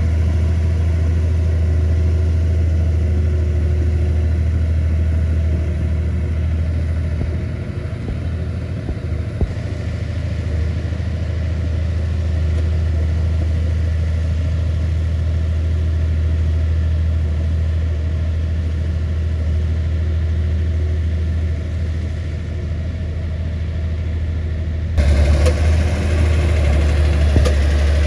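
Komatsu bulldozer's diesel engine running with a steady deep drone. It eases off briefly about eight seconds in and again around twenty-two seconds, then turns abruptly louder about twenty-five seconds in.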